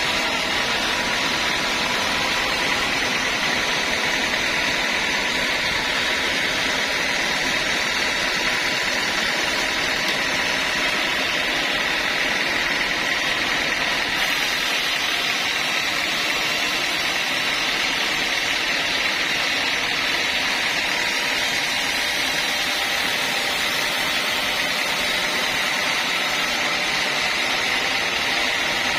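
Sawmill saw running steadily through teak, a constant loud mechanical noise with a faint high whine held throughout.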